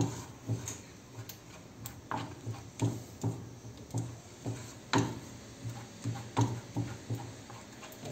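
Wooden spoon knocking and scraping against a non-stick frying pan as it stirs a stiffening dough of wood glue and cornstarch (homemade cold porcelain clay): irregular light knocks, about one or two a second.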